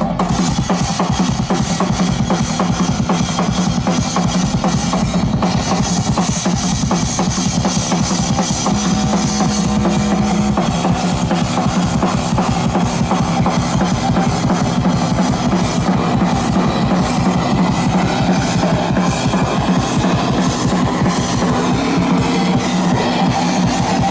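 Live instrumental music from a drum kit and a synthesizer: a fast, steady drum beat over held synth tones, which shift in pitch about ten seconds in.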